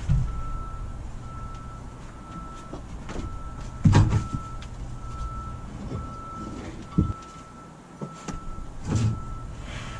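Several heavy thumps and knocks, the loudest about four seconds in, over a low hum, while a high electronic beep repeats about once a second.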